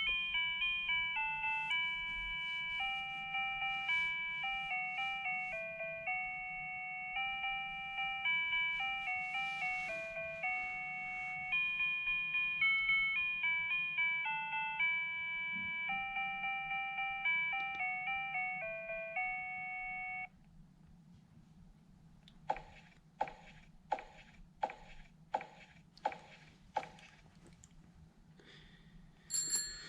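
An electronic chime melody, like a doorbell or ringtone tune, plays in clear steady notes and cuts off suddenly about two-thirds of the way through. After a short pause comes a run of sharp knocks, about two a second.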